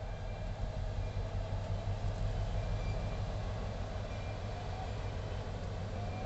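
GB Railfreight Class 60 diesel locomotive's engine running steadily with a low hum, the loco barely moving at the head of its freight train.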